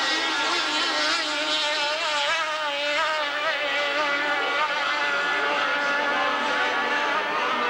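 Racing powerboat's engine running flat out as the boat speeds past, a steady note whose pitch wavers up and down.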